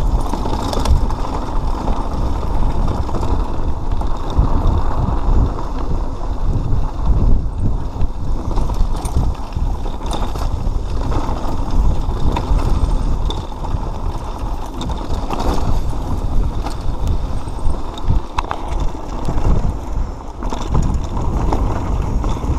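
Mountain bike riding over rocky dirt singletrack: a steady rumble of knobby tyres on dirt and loose stones, with the chain and frame rattling and knocking over the bumps.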